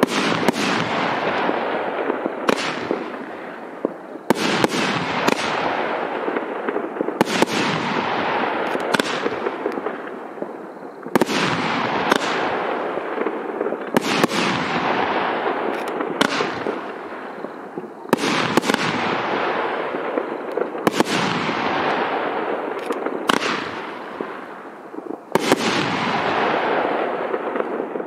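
A 500-gram consumer fireworks cake, the Double Detonation, firing its shots in sequence. About a dozen loud bangs come every one to three seconds, and each one trails off over a second or two.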